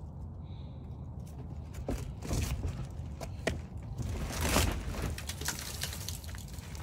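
Metal storm-drain grate being worked loose and lifted out of its frame: a series of scrapes and clinks, the loudest a longer scrape about four and a half seconds in. A steady low rumble runs underneath.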